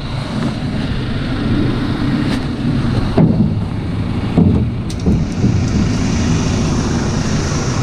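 Case Farmall 115U tractor running close by, with a few knocks of a steel cattle ring feeder being handled; the loudest knocks come about three and four and a half seconds in.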